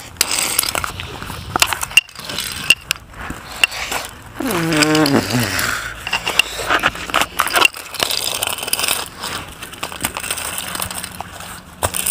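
Toy train clattering and scraping as it is pushed and rocked about by hand, with many scattered clicks and knocks. About four and a half seconds in, a falling pitched sweep lasts about a second.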